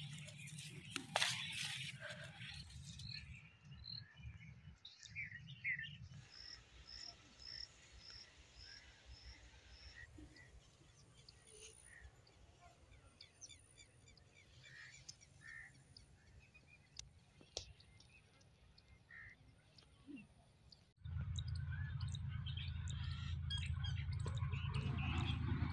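Birds chirping and calling, one giving a short high note repeated about twice a second. A steady low rumble starts abruptly near the end.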